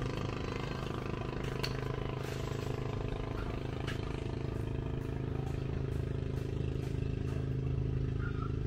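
A small engine running steadily at an unchanging pitch, with a few faint clicks.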